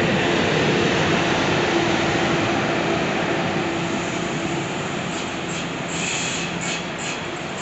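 Electric freight locomotives and wagons passing close by: a steady rumble of wheels on rail with a constant electric hum. Near the end come several clattering strikes as wheels run over rail joints.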